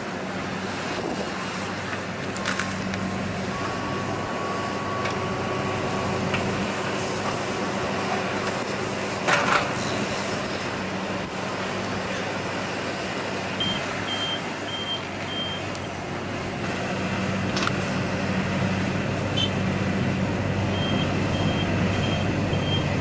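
Heavy diesel earthmoving machines running steadily at a recovery of a mired excavator, with a loud knock about nine seconds in. A reversing alarm beeps in two short runs, one past the middle and one near the end.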